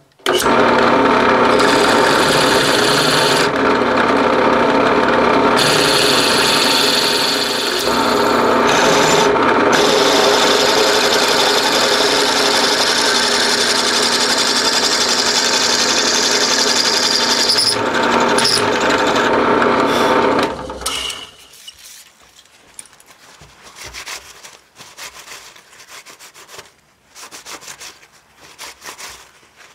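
A powered twist drill boring out the steam hole in a cast iron engine cylinder casting, enlarging it with a bigger bit: a steady machine hum with scraping cutting noise, which stops about 21 seconds in. After that comes softer, irregular brushing as iron chips are wiped off the casting.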